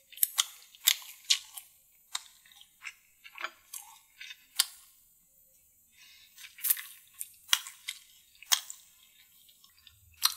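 Close-miked eating of a chicken drumstick: irregular wet chewing, lip-smacking clicks and small crunches, with a sharper click near the end.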